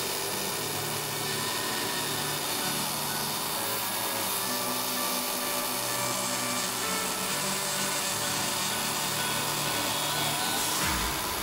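DIY CNC engraving machine at work: the pneumatic engraving stylus buzzes and scratches steadily into the plate while the stepper motors hum in short tones that change pitch as the head moves along its path.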